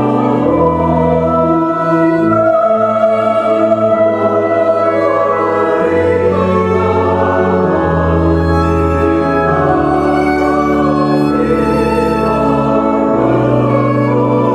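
A mixed church choir singing a hymn in parts, accompanied by organ and violin. Long organ bass notes change every second or two under the held voices.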